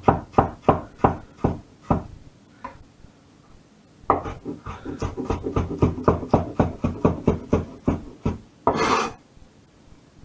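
Chef's knife chopping fresh ginger on a wooden chopping board: steady knocks about three a second, a pause of about two seconds, then faster chopping at about four a second. Near the end comes a short scrape.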